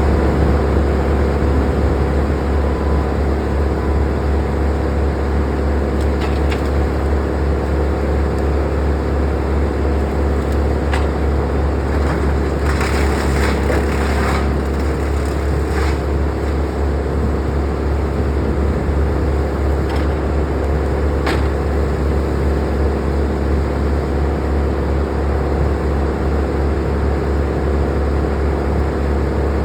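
Crane's engine running steadily at a constant pitch with a strong low hum. A few sharp knocks come through, and there is a brief rougher, noisier stretch about 13 seconds in.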